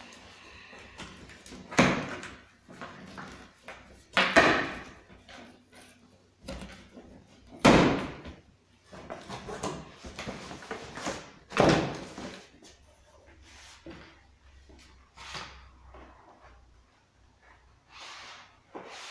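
Cardboard box being opened and unpacked: flaps and packing rustle and scrape, with about five loud knocks and thumps of cardboard and contents being handled on a wooden bench.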